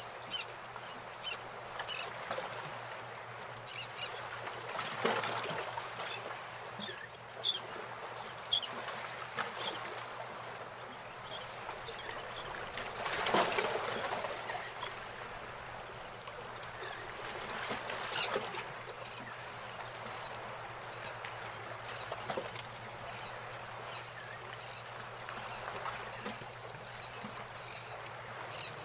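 Calligraphy pen scratching across a paper card in short inked strokes, over a low steady hum. Short runs of high, squeaky chirps come about a quarter of the way in and again about two-thirds in, and these are the loudest sounds.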